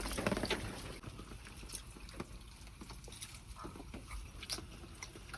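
Rain dripping: scattered, irregular drops over a faint hiss of rainfall, a little louder in the first second.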